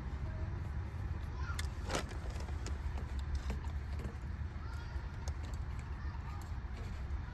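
Small clicks and rattles of fingers working wiring and parts inside a console cup-holder opening, the sharpest click about two seconds in, over a steady low rumble.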